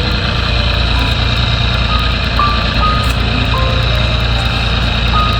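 Sparse, short beeping notes of background music at changing pitches, over a loud, steady rushing noise with a low hum.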